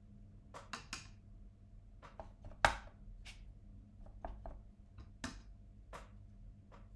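Paintbrush tapping and scraping in the wells of a watercolour mixing palette while paint is mixed: a scatter of short clicks, the loudest a sharp knock a little under three seconds in.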